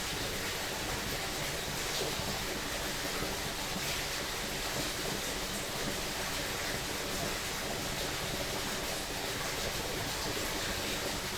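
Forest stream flowing: a steady rush of running water.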